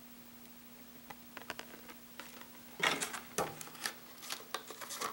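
Clear plastic lure packaging being handled: light clicks and crinkles, with a louder plastic rustle about three seconds in as a spinnerbait goes back into its package. A faint steady hum runs underneath.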